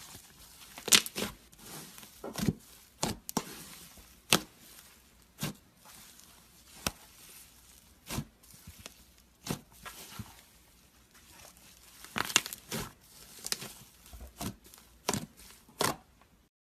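Slime being worked for ASMR, giving a string of irregular sharp clicks, pops and crackles. It cuts off suddenly just before the end.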